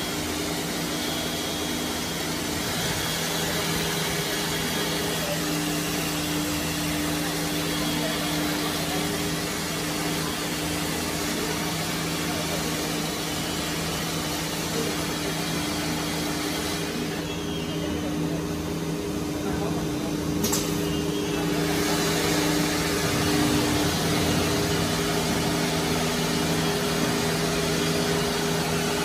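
Four-head nesting CNC router running with its dust extraction: a steady machine hum over a broad hiss. The hiss thins out for a few seconds about two-thirds of the way through, with a single sharp click.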